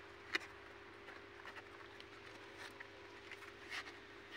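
Kittens' claws scratching and pattering on the cardboard floor of a box as they scramble about, with one sharp tap about a third of a second in. A faint steady hum runs underneath.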